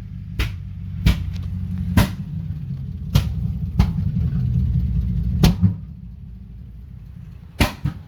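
A 2010 Silverado hybrid's 6.0 L V8 running rough with sharp, loud backfire pops about once a second; the engine sound drops away about six seconds in and two more pops follow. The misfire and backfiring come from a failed Active Fuel Management lifter.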